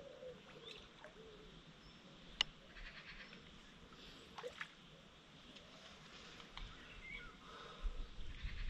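Quiet lakeside ambience with a few faint bird calls and a single sharp click a little over two seconds in. A low wind rumble on the microphone rises near the end.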